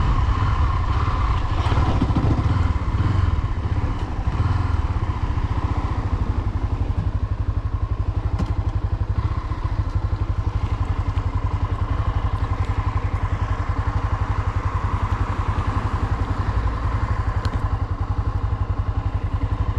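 Low-displacement motorcycle engine running steadily, its exhaust pulses an even rapid beat with no change in speed.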